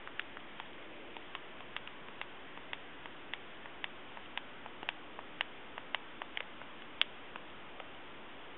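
Light, irregular clicks and taps, about three a second, over a steady hiss, from hands handling the dock and pressing at it, with one sharper click about seven seconds in.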